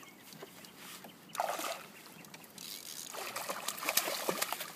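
A hooked channel catfish thrashing at the surface of the water, splashing that builds over the last two seconds, after a short burst of noise about a second and a half in.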